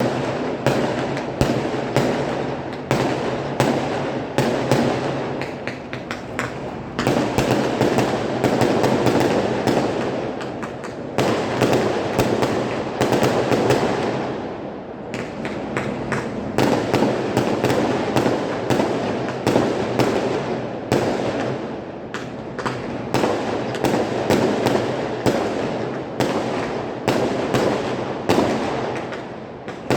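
Lunar New Year fireworks and firecrackers going off in a dense, unbroken barrage of rapid bangs and crackles, swelling and easing in waves every few seconds.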